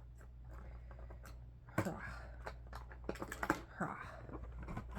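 Irregular small clicks and taps of a packaged cosmetic product, a creamy eyeliner, being handled and taken out of an advent calendar compartment, with a steady low hum underneath.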